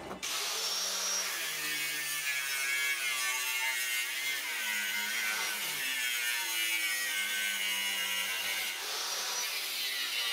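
Angle grinder with a cut-off wheel cutting through steel plate: a steady high whine over a gritty hiss, its pitch shifting slightly. It starts suddenly right at the beginning.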